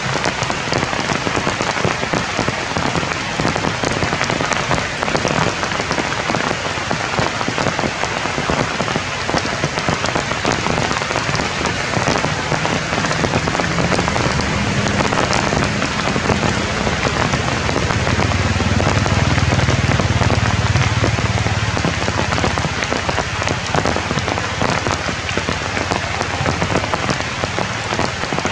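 Steady rain falling through tree leaves, a dense even hiss of drops. A low rumble swells in the middle and fades again.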